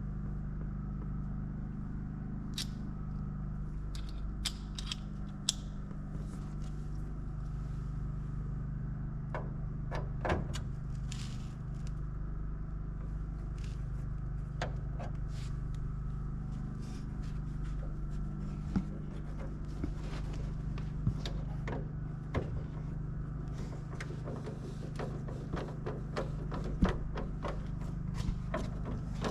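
A steady low mechanical hum runs throughout, with scattered sharp clicks, taps and short scrapes from hand tools and wire being worked.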